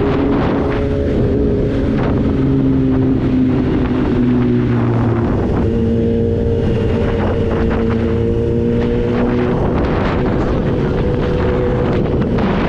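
Kawasaki Z H2's supercharged inline-four running steadily at cruising speed in third gear, its pitch easing slightly and then rising a little about halfway through, with wind rushing over the microphone.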